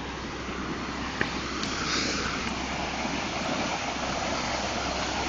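Steady rushing of the flooded Brandywine Creek, a little louder toward the end.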